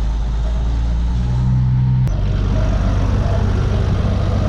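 Deutz-Fahr tractor's diesel engine running, heard from inside the cab. The engine note rises about a second in, then drops abruptly to a steady run about halfway through.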